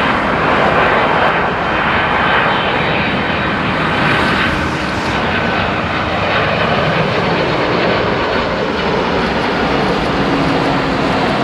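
Airbus A300-622 cargo jet on final approach, its two turbofan engines giving a loud, steady roar with a faint whine over it as it passes close by.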